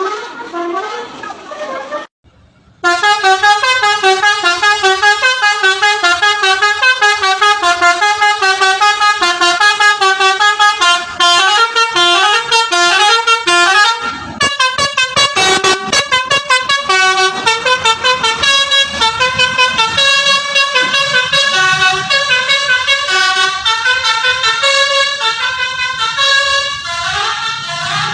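Telolet basuri, a bus's multi-trumpet musical air horn, playing a quick tune of rapidly changing notes. A brief gap comes about two seconds in, after which the tune runs on louder without a break.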